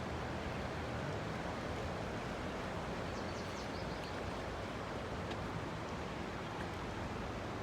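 Steady rushing of the Colorado River's flowing water, with a few faint light ticks about three seconds in.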